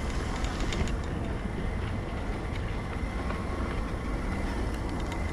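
A scooter rolling over a rough, sandy path: a steady low rumble with scattered rattling clicks and a faint steady high whine.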